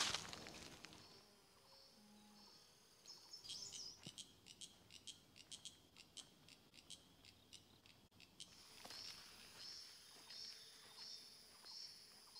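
Faint high-pitched chirping of wild creatures: a quick run of clicking chirps in the middle, then a single high chirp repeated about one and a half times a second near the end.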